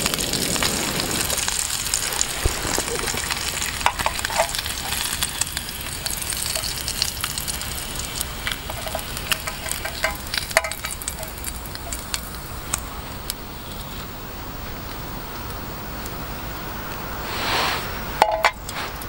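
Bacon sizzling in a steel mess tin on a gas-canister stove, with small clicks and scrapes as the rashers are moved and lifted out. The sizzle slowly fades, and a brief louder rustle comes near the end.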